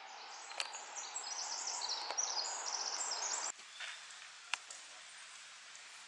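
Forest ambience: many small birds chirping and trilling over a steady hiss. It cuts off abruptly about three and a half seconds in, leaving a quieter background with a few faint clicks.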